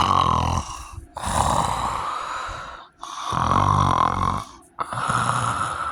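Heavy snoring from a sleeper with sleep apnea: two rattling snores, each followed by a long, noisy breath, about three seconds per breath cycle.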